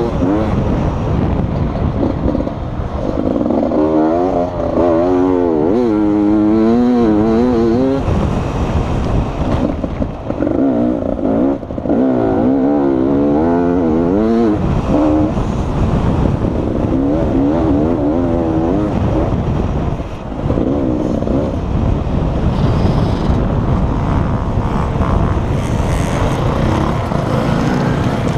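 Beta RR 300 two-stroke single-cylinder dirt bike engine under hard riding, its revs climbing and dropping again and again as the throttle is worked, with wind rush on the helmet microphone.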